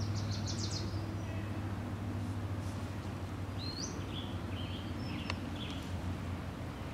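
Birds chirping over a steady low drone: a quick run of short high chirps at the start, then a few short calls a little past the middle.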